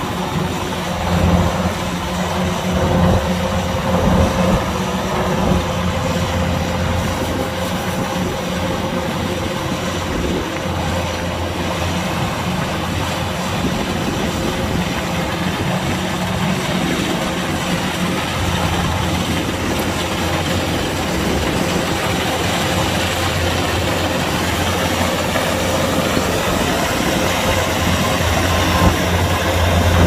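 Kubota DC-105X combine harvester running: a steady low diesel engine drone with a constant mechanical wash over it.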